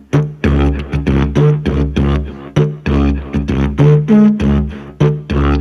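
Didgeridoo beatboxing on a C# Saxo-Didge: a steady low drone with rhythmic, punchy beatbox strokes, about three a second, blown and voiced through the horn, its tone shifting as the mouth shapes change.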